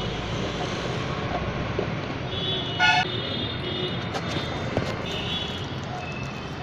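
Street traffic running steadily, with a short vehicle horn toot about three seconds in, and a few light clicks shortly after.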